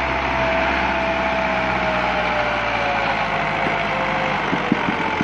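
Massey Ferguson 265 tractor's three-cylinder diesel engine running hard as it strains to pull a heavily overloaded trolley, its pitch slowly sinking as it lugs under the load. Near the end a rapid knocking pulse sets in.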